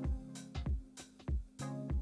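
Instrumental background music with a steady drum beat under sustained pitched notes.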